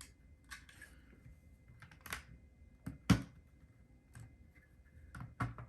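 LEGO plastic bricks being handled and pressed into place: scattered sharp clicks and taps, the loudest about three seconds in.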